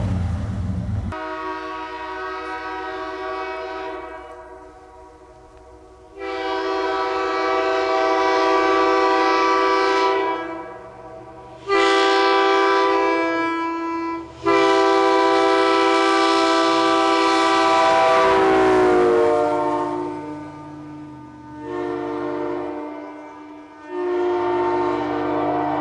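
Leslie S3K three-chime train air horn on a moving SUV, sounding a D-sharp, F-sharp, A-sharp chord in six long blasts, after a brief low engine rumble at the start. The pitch slides down during the fourth and longest blast as the vehicle passes, and the last two blasts are weaker.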